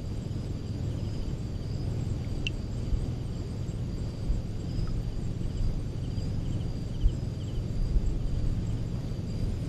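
Low, steady rumble of shallow water moving around the phone and the wading spearfisher, with a few small knocks. Faint high chirping sounds over it.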